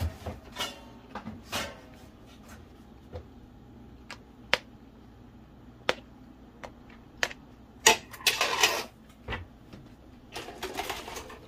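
Slotted metal spoon clinking and scraping against a steel wok and a plastic food container as stir-fried noodles are scooped out. Scattered sharp clicks, with longer scraping about eight seconds in and again near the end.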